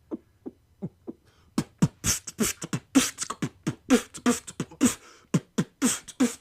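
Vocal beatboxing: a few soft, low kick-drum thumps in a heartbeat-like rhythm, then about a second and a half in a full beat starts, with sharp snare and hi-hat sounds over the kicks.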